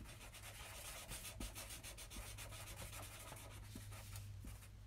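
Felt-tip marker scribbling on paper in quick, faint back-and-forth strokes as it fills in a drawn eye.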